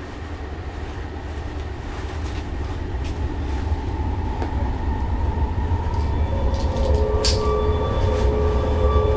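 Dark ambient film soundscape: a heavy low rumble that swells steadily louder, with sustained high tones coming in after about six seconds and a single sharp click shortly after.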